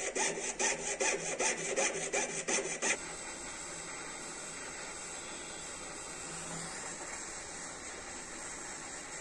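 Jeweller's piercing saw cutting through a silver ring, with quick, even strokes at about five a second for roughly three seconds. It gives way suddenly to the steady hiss of a gas soldering torch flame heating the ring for soldering.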